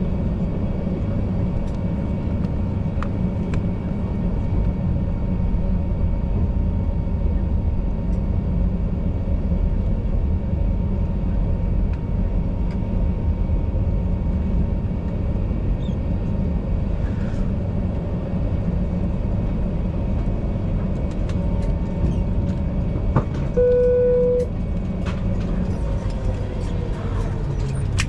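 Airbus A319 cabin noise while taxiing: the engines running at idle with a steady low rumble and faint steady whine. About three-quarters through, a single cabin chime sounds, and near the end the engine pitch falls as the engines spool down at the gate.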